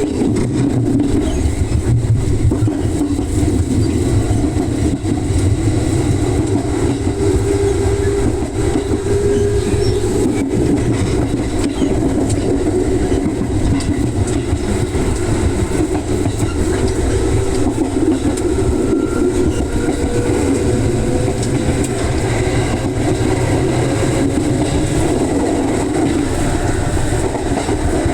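Onboard running sound of an electric commuter train: steady motor and wheel rumble, with a faint whine that slowly rises in pitch near the end as the train gathers speed.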